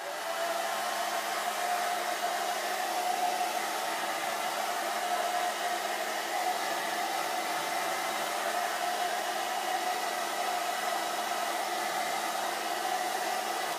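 Handheld hair dryer running steadily, a constant rush of air with a steady motor whine in it, drying a dampened paper page; it cuts off near the end.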